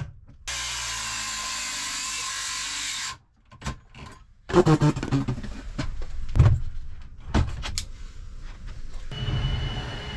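A cordless drill runs steadily for about two and a half seconds and stops sharply, followed by a run of knocks and clicks from handling the work. About nine seconds in, a handheld vacuum cleaner starts with a steady whine and hum.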